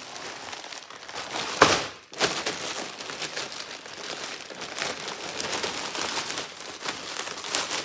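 Plastic packaging crinkling as hands handle a clear plastic bag and a polythene mailer bag, with one sharper, louder crackle about a second and a half in.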